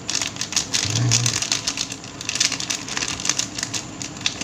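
Plastic sachet crinkling and crackling as hands squeeze and shake powdered bait additive out of it into a bowl of bait dough: a dense run of rapid small crackles.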